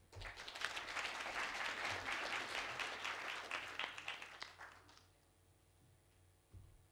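Audience applauding, fading out about five seconds in.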